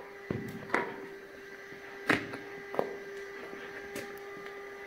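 Footsteps on the mine floor: about five short, sharp steps spaced unevenly, over a faint steady tone.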